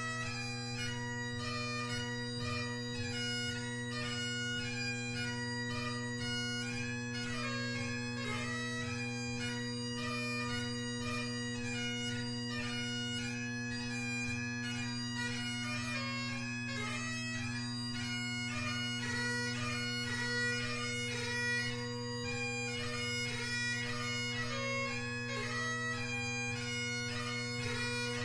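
Great Highland bagpipe, with McCallum AB6 drones and a G1 Blackwood chanter, playing a tune: a quick-moving chanter melody over the steady hum of the drones.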